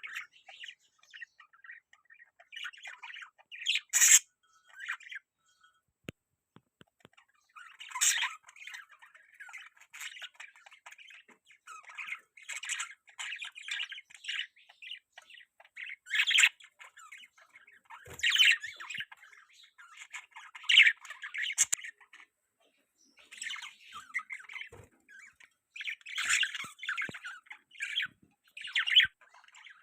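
Pet budgerigars chattering and warbling, broken every few seconds by loud, sharp squawks, with a short lull about six seconds in.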